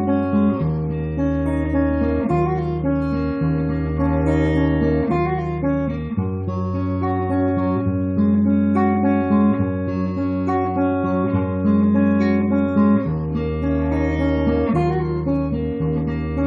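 Acoustic guitar playing a song's instrumental introduction: strummed chords with the bass note changing every second or two.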